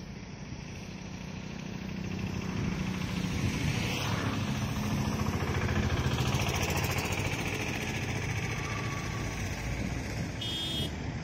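WDP4D diesel-electric locomotive approaching with its train, its engine and the rumble of the coaches growing steadily louder over the first half and then holding. The locomotive's engine is an EMD 16-cylinder two-stroke diesel.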